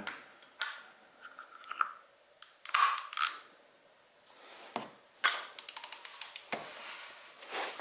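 Metal tools clinking and knocking as an oil filter wrench and socket extension are handled and fitted together, with a quick run of ratchet clicks about five seconds in.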